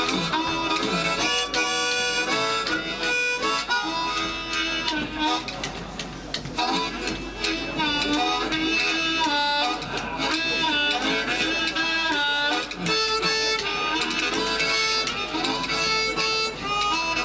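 Amplified blues harmonica solo, the harp cupped tight against a handheld bullet microphone, playing held notes with some bent, sliding pitches over the band's guitar backing.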